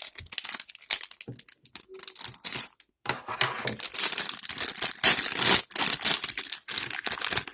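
Crinkly toy packaging being torn open and handled by hand: dense crackling in the first second and again through the second half, with scattered clicks and rustles in between.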